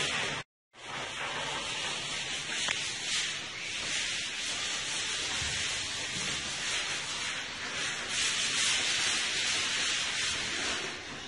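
Hand-held sponge rubbing paint onto a plastered wall in short circular strokes: a steady, scratchy rubbing that swells with each stroke. It cuts out briefly about half a second in.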